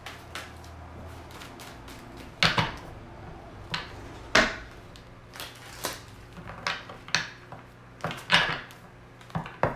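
A tarot deck being shuffled by hand, giving irregular sharp slaps and clicks of cards against each other, about a dozen in all, some close together in pairs. A faint steady low hum runs underneath.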